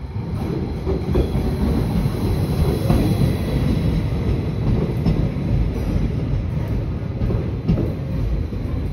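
Electric railcar ET 131 rolling into the station: a steady rumble of wheels on rails with a few sharp clicks, loud from the start.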